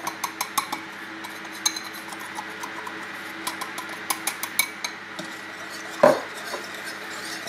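Wire whisk clinking against a glass bowl and the side of a pot and stirring almond milk and cornstarch, in a run of quick light taps over a steady faint hum. A single duller knock comes about six seconds in.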